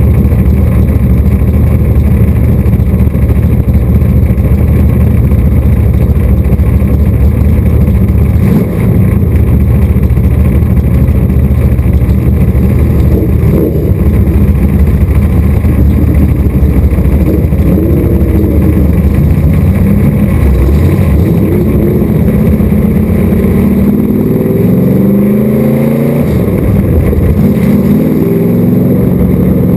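A modified race car's engine idling loudly, heard from inside the cockpit. From about two-thirds in it revs up in rising and falling sweeps as the car pulls away.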